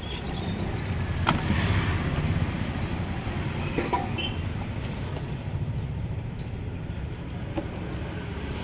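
Steady rumble of road traffic, a little louder for a second or so about a second in, with a couple of short, light clicks like a steel serving spoon on steel pots.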